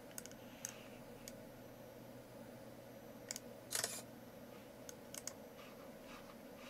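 Faint mouse clicks, then, just before four seconds in, the brief camera-shutter sound effect of the Ubuntu screenshot tool as the delayed screenshot is taken, followed by a few more clicks.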